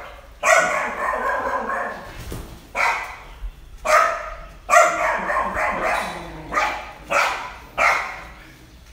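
A dog barking repeatedly, about seven loud barks spread unevenly through the stretch.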